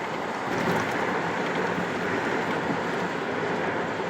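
Steady road and wind noise of a car driving at freeway speed, with no distinct events.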